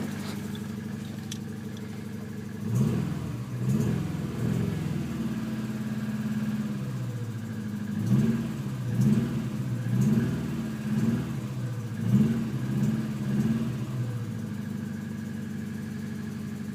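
1999 Honda Civic Si's four-cylinder engine idling, then revved in a series of short throttle blips with one brief hold at higher revs, settling back to idle; the owner suspects a spun bearing.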